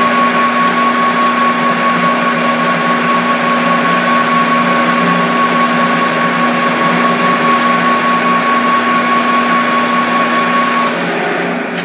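Metal lathe running at speed with a steady high whine while a twist drill in the tailstock bores into the end of a spinning rod. Near the end the whine stops and the machine winds down.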